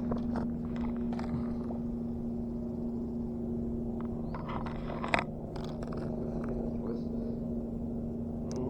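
A steady low mechanical hum with scattered light clicks and one sharper click about five seconds in.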